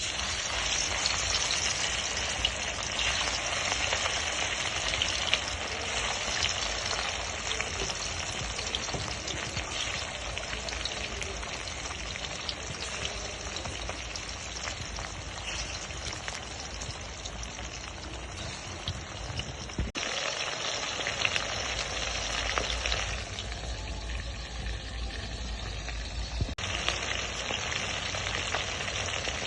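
Food frying in hot oil in a pan, a steady sizzle, with abrupt changes in the sound twice in the second half.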